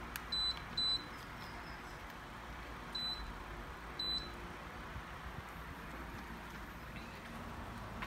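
Akira split air conditioner indoor unit giving four short high beeps, twice in quick succession and then twice more a few seconds later, each acknowledging a button press on the remote. A steady hiss runs underneath.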